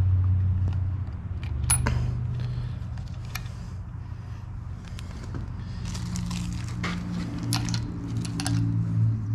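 Light metal clicks and clinks as small parts of a 727 automatic transmission valve body are handled and fitted by hand, coming more often in the second half, over a steady low hum.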